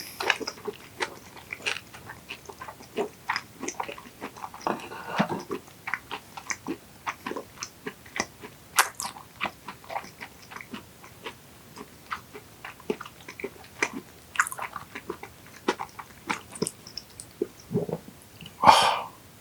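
Close-miked chewing of soft raw yellowtail sashimi: irregular wet mouth smacks and clicks. A brief, louder sound comes near the end.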